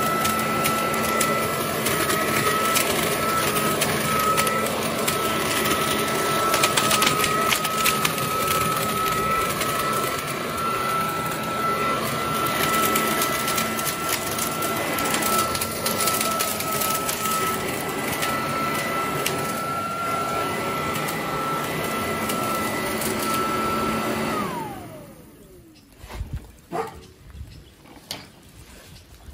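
Parkside PLS 2600 B2 electric leaf blower-vacuum running steadily with a high fan whine, then switched off about twenty-four seconds in, its whine falling as the motor spins down. A few short clicks follow.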